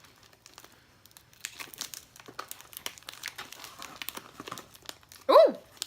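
Snack packaging crinkling and tearing as it is handled and opened, a scatter of small crackles. About five seconds in, a loud exclaimed "Ooh!".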